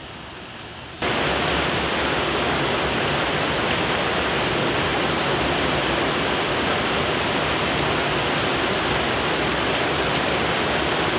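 Water pouring over a small concrete spillway, a steady rushing that starts suddenly about a second in.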